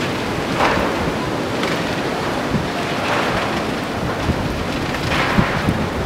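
Strong wind rushing and buffeting the microphone, a continuous noise that swells in gusts about half a second in and again near the end.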